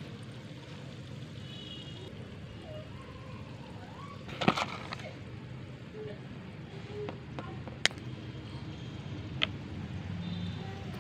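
Dry Multani mitti (fuller's earth clay) chunks clicking and knocking against each other as they are handled in a bowl. A short cluster of sharp clicks comes about four seconds in, then single clicks near eight and nine seconds, over a steady low background noise.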